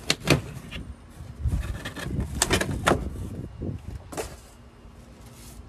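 Cardboard shipping box being pulled and torn open at one end: a handful of sharp cardboard rips and knocks, with scraping and rustling between them.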